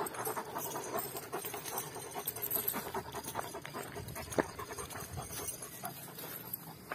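Kangal shepherd dogs panting steadily, with one sharp click about four and a half seconds in.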